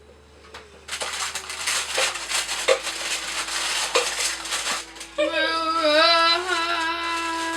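A rough crunching, scraping noise of kitchen work for about four seconds, then a woman singing one long, wavering note.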